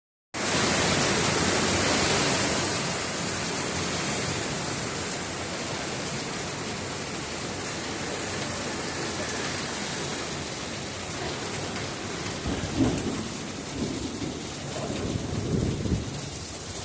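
Heavy rain mixed with hail pelting down in a storm: a dense, steady hiss, loudest in the first couple of seconds, with a few short low thuds near the end.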